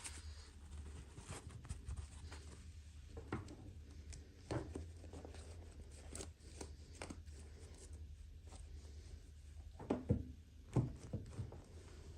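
Hands handling and opening small toy packaging: scattered light clicks, rustles and taps, with a couple of sharper knocks near the end.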